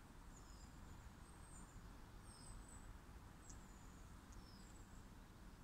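Near silence outdoors, with faint, scattered high chirps of small birds.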